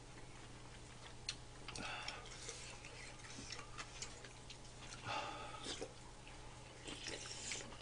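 Faint eating sounds: scattered light clicks of a metal spoon and chopsticks against bowls, with a few short mouth noises of sipping and chewing, over a low steady hum.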